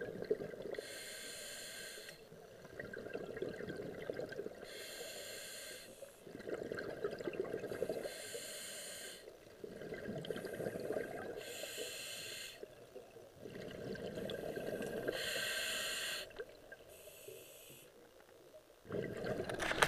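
Scuba diver breathing through a regulator underwater: a short hissing inhale every few seconds, each followed by a longer rush of exhaled bubbles, in a steady cycle of about five or six breaths.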